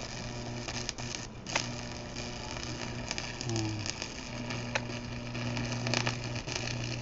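Stick-welding arc on steel burning steadily: a continuous crackle and sizzle with sharp pops, over a steady hum. The arc breaks briefly about a second in.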